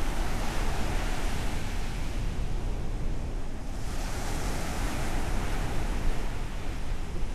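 Ocean surf breaking and washing up the shore: a continuous rush over a low rumble, with a wave's wash swelling brighter about four seconds in.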